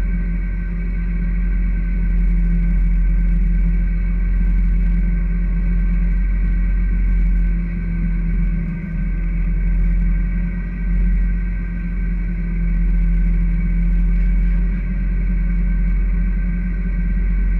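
A fishing boat's engine running steadily at sea, a constant low droning hum.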